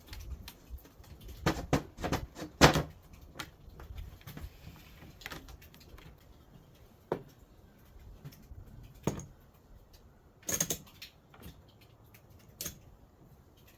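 Scattered wooden knocks and clicks as the drawer parts are handled and fitted together during the glue-up, a quick cluster in the first few seconds with the loudest knock near three seconds in, then single knocks every couple of seconds.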